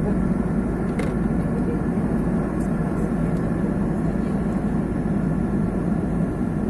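Steady cabin roar of an Airbus airliner in flight, jet engines and rushing air heard from inside the cabin, with a faint click about a second in.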